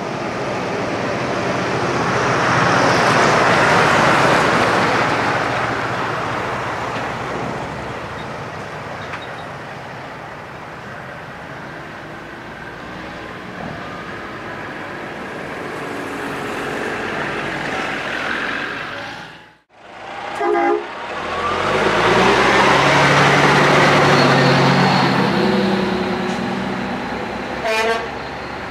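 American semi-trucks driving past one after another, their diesel engines swelling as each one nears and fading as it goes by. A short horn toot sounds just after a brief break at about 20 seconds, and a brief truck horn blast comes near the end.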